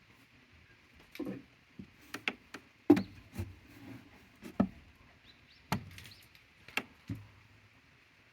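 Goats knocking about on wood: about a dozen irregular, sharp knocks and thuds, the loudest about three seconds in.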